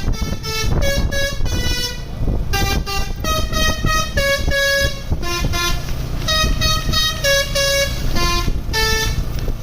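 A bus's telolet musical air horn playing quick strings of short notes that jump between pitches, in phrases with brief gaps, over a steady low rumble.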